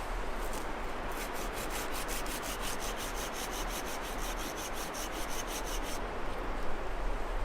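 A hand tool rasping through wood in quick, even strokes, about six a second, starting about a second in and stopping near six seconds.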